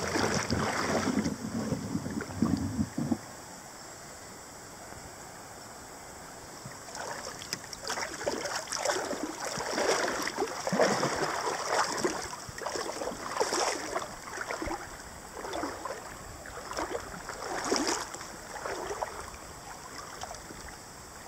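Legs wading through shallow river water, sloshing and splashing in irregular strides about once a second, starting about a third of the way in. A low rumble fills the first three seconds.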